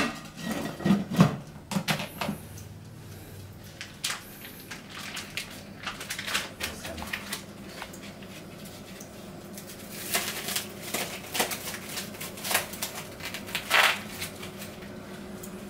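Irregular clicks and knocks of kitchen utensils and dishes being handled during cooking, busiest near the start and again in the last few seconds.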